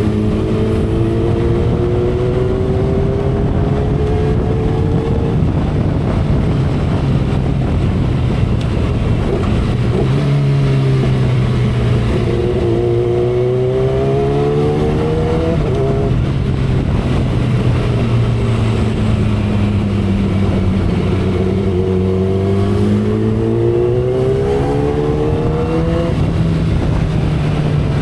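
2012 Kawasaki Ninja ZX-10R's 998 cc inline-four running at speed under wind noise from the saddle. Its exhaust note rises in pitch as it accelerates, drops sharply about five seconds in, climbs again and drops about sixteen seconds in, eases off, then rises once more and drops near the end.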